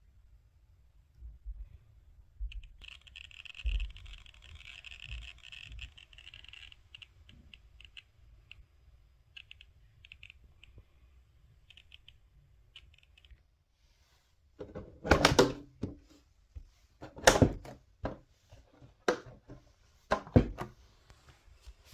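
Cardboard RC-truck box being handled: a faint rustle for a few seconds, then four loud knocks and clatters in the last third.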